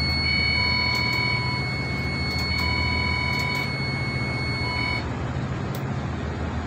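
Switchboard alarm buzzer sounding, with a tone that pulses on and off about once a second, set off by the tripped diesel generator. It runs over the steady low hum of the generators and engine-room machinery, and the alarm cuts off about five seconds in.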